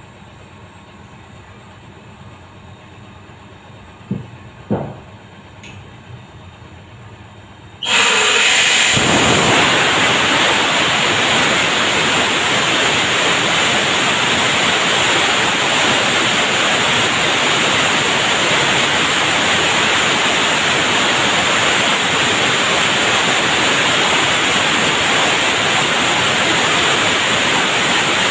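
Liquid-oxygen tank trailer venting gas through a valve: a sudden, loud, steady hiss starts about eight seconds in. Before it there is only a low hum and two short knocks.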